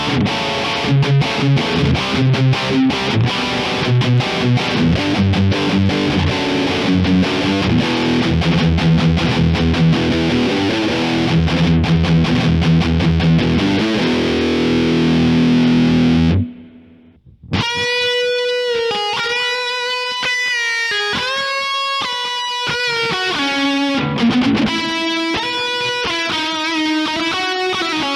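Distorted electric guitar with humbuckers, played through a high-gain Kemper profile of a Fender Frontman Reverb practice amp with a Diezel cabinet. A fast rhythm riff stops briefly about 16 seconds in, and a single-note lead riff follows.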